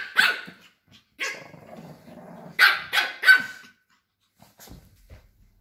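Lhasa Apso dogs barking in play: sharp high-pitched yaps, one near the start and another about a second in, a low growl, then three quick yaps around three seconds in.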